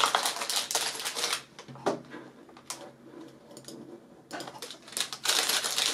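Clear plastic bags of Lego pieces crinkling and rattling as they are handled and lifted out of the set's cardboard box. The sound comes in two busy spells, with a quieter gap of a few scattered clicks in the middle.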